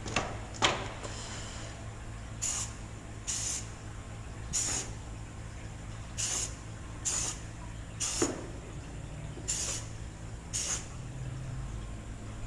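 Aerosol spray-paint can fired in eight short bursts of hiss, each under half a second and about a second apart, laying down stripes of camouflage paint. Two sharp clicks of the can being handled come in the first second.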